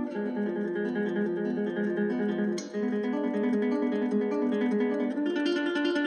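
Background music: a melody of short notes on a plucked string instrument, with a brief break a little under halfway through.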